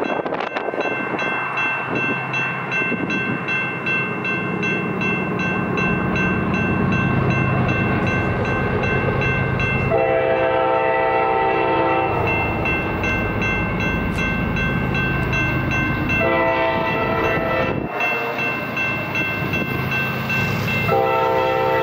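A CSX freight locomotive's air horn blowing three blasts as it approaches a grade crossing, the first starting about halfway through, over the steady rumble of the diesel engine. A crossing bell rings steadily.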